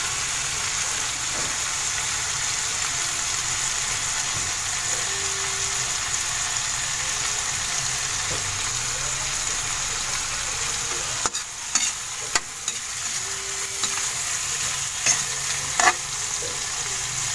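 Sliced tomatoes sizzling in hot oil in a metal wok, a steady hiss. From about eleven seconds in, a metal spatula clinks and scrapes against the wok in short, irregular knocks as they are stirred.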